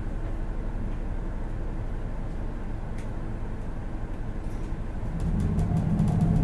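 Hino Blue Ribbon City city bus's diesel engine heard from inside the bus, idling steadily. About five seconds in it grows louder and its pitch begins to rise as the bus starts to accelerate, with a few faint clicks near the end.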